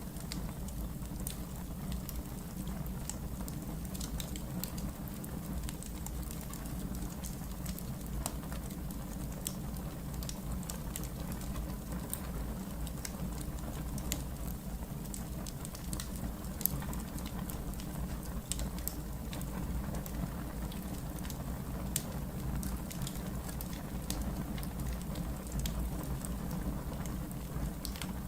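Wood fire crackling in a fireplace: irregular small pops and crackles over a steady low rumble.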